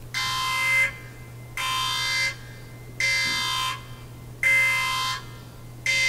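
An electronic buzzer or alarm tone sounding in five evenly spaced blasts, each about two-thirds of a second long and about one every second and a half. A steady low hum runs underneath.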